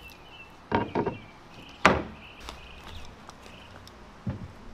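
Plywood hatch panels knocking against the wooden frame of a casting deck as they are set into place: three short wooden knocks, the loudest about two seconds in.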